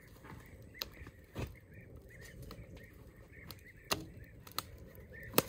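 A few sharp knocks of wood and metal at a small wood-fired stove as logs are handled at the firebox, the loudest near the end. A small bird chirps repeatedly in the background.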